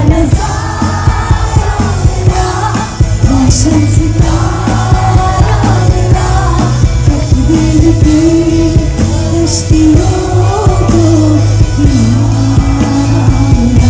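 Live band music over a PA with a woman singing lead, heard from within the crowd, with a heavy, steady bass under the sung melody.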